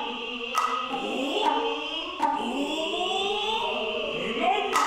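Noh hayashi music: a noh flute holds a high, steady note while the tsuzumi hand drums give four sharp strikes, and long drawn-out vocal calls glide upward between them.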